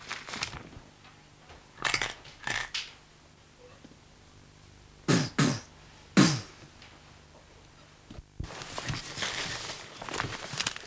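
A man coughing hard, several short harsh coughs in small groups, the loudest about six seconds in. Near the end a steady rustling of movement through brush starts suddenly.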